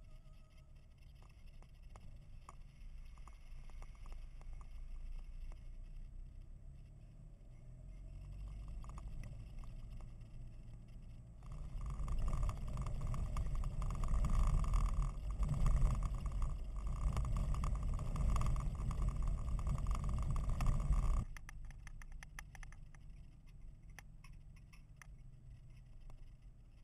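Four-wheel drive on an unsealed dirt track, heard from inside the cab: a steady low rumble of engine and tyres on rough ground. It is much louder through the middle stretch, which starts and stops abruptly.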